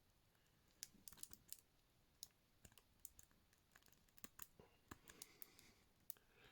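Faint, irregular metallic clicks and ticks of a rake pick being worked in and out of a padlock's keyway, scraping over the pin tumblers while a tension wrench holds the plug.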